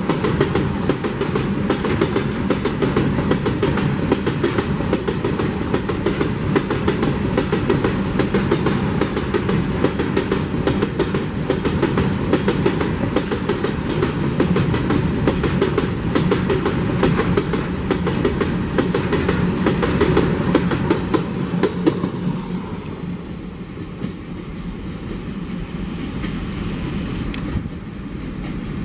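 Wheels of a long freight train of open steel wagons rolling past at speed: a dense, rapid clatter over the rail joints on a steady rumble, easing near the end.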